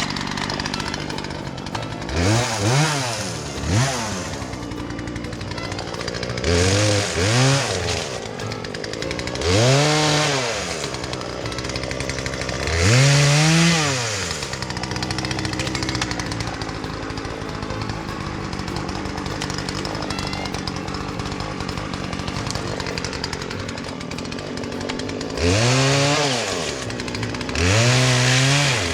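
Two-stroke chainsaw idling and being revved up and back down in short bursts, about eight times.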